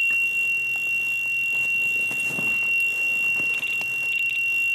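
Electronic carp-style bite alarm sounding one continuous high-pitched tone as a fish runs with the bait and strips line, with a stretch of rapid beeping over it near the end.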